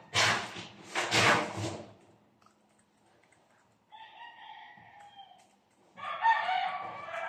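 Rooster crowing: one long, even crow about four seconds in, then a louder crow starting about six seconds in and running past the end. Before that, two loud harsh bursts in the first two seconds.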